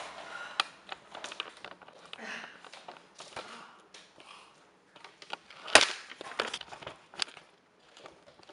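Camera handling noise: scattered clicks, knocks and rustles as the camera is picked up and carried, with one loud knock a little under six seconds in.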